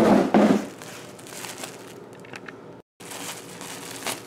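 Clear plastic bag crinkling and rustling as hands pull it open around a plush toy, with two loud handling bumps at the very start and a brief cut-out near three seconds in.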